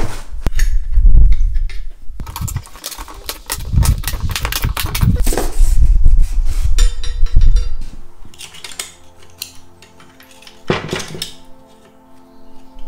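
Steel pushrods of a Renault 671-4 engine clinking and rattling as they are pulled out and pushed through a sheet of cardboard, with knocks and low thumps of handling. From about seven seconds in, soft background music with long held tones comes in, with a single metallic knock near the end.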